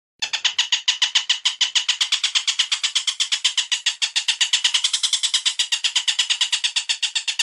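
Recorded bird call: a fast, even run of repeated notes, about nine a second, starting abruptly and carrying on without a break.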